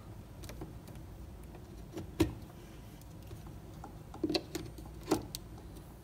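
A few short plastic clicks and knocks as a plug-in household gas alarm is handled and pushed into a wall outlet. The sharpest click comes about two seconds in, with two softer knocks near the end.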